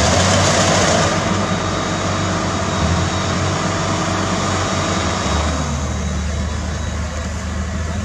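Rice combine harvester and its roll baler running in the field: a steady engine drone under machinery noise. The sound drops a little about a second in, and a deeper low hum comes in about five and a half seconds in.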